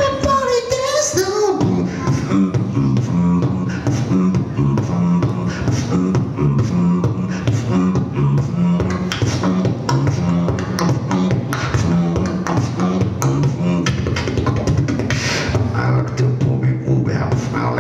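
Human beatboxing into a handheld microphone. It opens with a short gliding vocal warble, then settles into a steady rhythm of sharp mouth clicks over a pulsing two-note bass line, and near the end holds a low bass hum.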